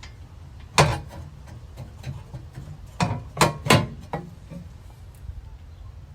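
A sharp knock, then a quick run of four knocks and clanks about three seconds in, some with a short ring, over a low steady rumble.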